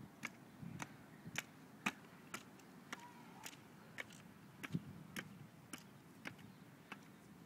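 Footsteps of Air Trekkers spring-loaded jumping stilts walking on a hard court surface: a short sharp click with each step, about two a second.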